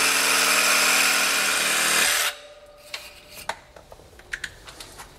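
Cordless reciprocating saw cutting through the hose reel's tapered inlet, running steadily and stopping suddenly about two seconds in. A few light clicks and taps follow.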